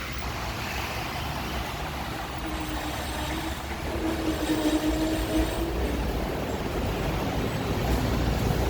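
Hong Kong double-decker electric tram running along its street track, a steady rumble that grows louder, with a steady tone joining in for a few seconds near the middle.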